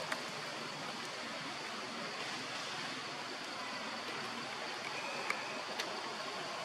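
Steady outdoor background hiss, even and unchanging, with a few faint sharp clicks, one just after the start and two more about five to six seconds in.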